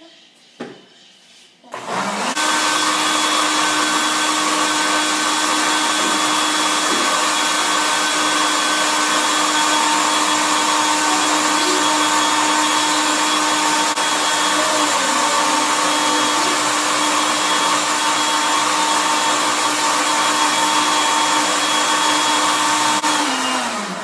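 White countertop electric blender switched on about two seconds in, running steadily at one speed with a constant hum as it blends a fruit-and-yoghurt smoothie, then switched off near the end, its pitch falling as it spins down.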